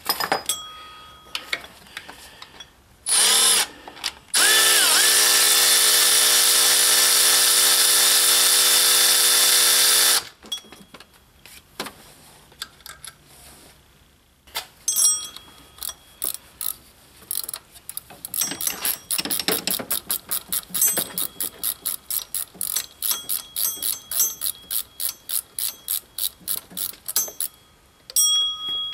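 Cordless ratchet motor whirring as it backs a motor mount bolt out of holes whose threads are stripped. It gives a short burst first, then runs steadily for about six seconds. After a pause comes a long run of sharp clicks that grow quicker toward the end.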